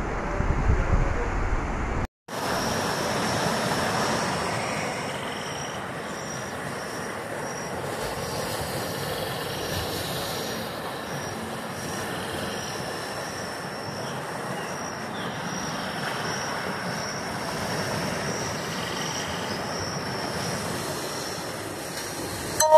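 Fast muddy floodwater rushing in a swollen river, a steady wash of water noise. About two seconds in, the sound cuts from a clip with wind buffeting the microphone to the rushing water, and a faint high tone comes and goes over it.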